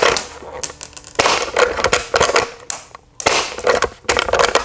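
CO2-powered shell-ejecting lever-action airsoft rifle fired twice, with sharp pops. Between the shots the lever is worked: metallic clacks of the action cycling and throwing out the spent shell.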